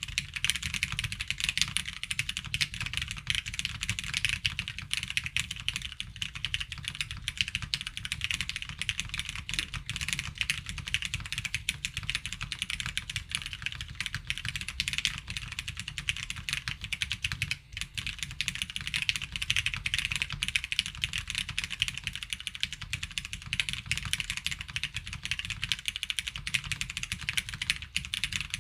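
Mechanical keyboard typed on quickly and continuously: Hyperglide MX Brown switches under Ghost Judges keycaps on a custom Qwertice R2 with a polypropylene plate, a dense stream of clacks with a higher-pitched, plasticky sound. The typing stops for a moment a little past halfway.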